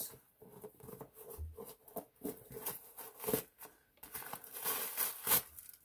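Packing paper crinkling and rustling as it is handled and pulled from inside a new clog, in short irregular scrunches.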